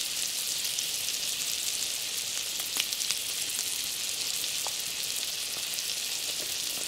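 Marbled beef steak sizzling in melted fat on a small metal griddle plate over campfire coals: a steady frying hiss with a few small pops.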